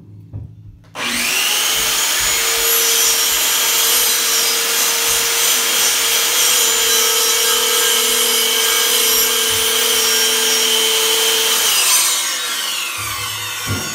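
Electric circular saw starts abruptly and runs with a steady high whine, cutting along a wooden board for about ten seconds. Near the end the trigger is released and the motor winds down with a falling whine.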